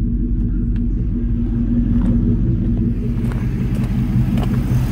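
Chevrolet Tahoe's V8 idling steadily, with a few footsteps on gravel. From about three seconds in, a rushing of air from the newly installed electric cooling fan, just commanded on through the scan tool, grows louder.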